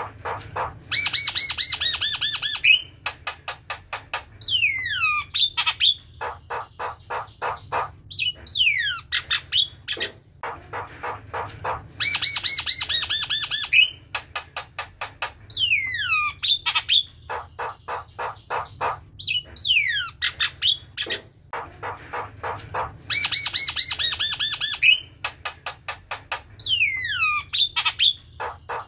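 Javan myna singing a chattering song of rapid harsh notes, falling whistles and fast pulsed trills. The same sequence of phrases repeats about every 11 to 12 seconds.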